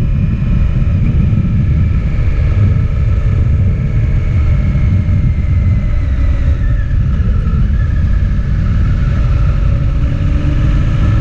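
Motorcycle riding at road speed, heard from a camera on the bike: heavy wind rumble on the microphone under the engine's steady whine, which drops in pitch a little past the middle as the bike slows and starts to climb again near the end.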